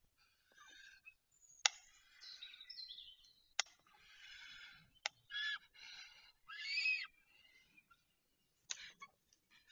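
Bird calls and chirps from the nest-camera microphone, in short patches, with four or five sharp clicks spread through them.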